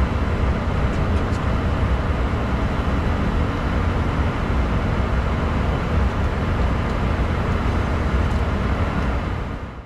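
Steady cockpit noise of a Bombardier Challenger 605 in flight: an even rush of airflow over the fuselage with the hum of its GE CF34 turbofan engines. It fades out at the very end.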